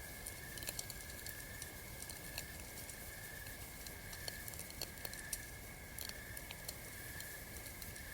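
Campfire crackling: irregular sharp pops and snaps, several a second, over a low rumble, with a steady high-pitched tone underneath.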